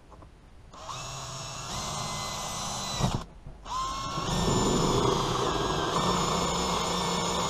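Electric drill driving a hole saw through a plastic battery box lid: it runs for about two seconds, stops briefly, then spins up again and cuts steadily.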